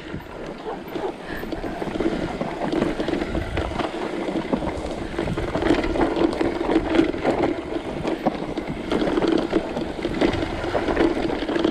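Mountain bike rolling fast down a dirt singletrack: a steady rush of tyre and wind noise with many small rattles and knocks from the bike going over the rough trail.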